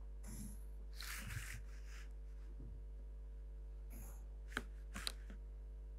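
Faint scratching of a pencil on drawing paper and plastic set squares being shifted on the sheet, with two sharp clicks about half a second apart near the end, over a steady low electrical hum.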